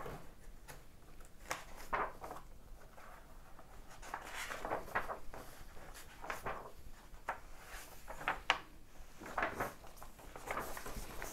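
Pages of a vintage paper sewing magazine being turned and handled: a string of short paper rustles and flaps, one every second or two.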